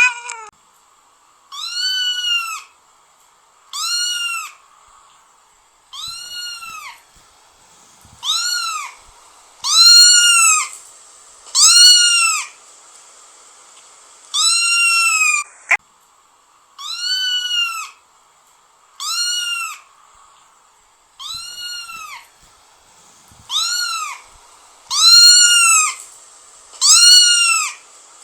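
A cat meowing over and over, about one loud meow every two seconds. Each meow rises and then falls in pitch.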